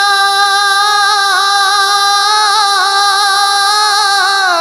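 A male naat singer holding one long, high sung note, with small wavering turns in the middle of it, ending a little before the end.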